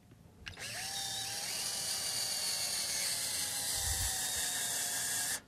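Cordless drill driving a hex-head wood screw into a speaker baffle to mount a driver. The motor spins up with a short rising whine about half a second in, runs steadily for about five seconds, and stops suddenly.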